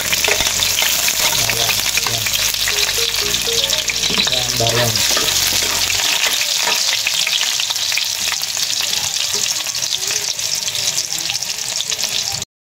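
Garlic sizzling in hot cooking oil in a pan, stirred now and then with small scraping ticks. The sizzle cuts off suddenly just before the end.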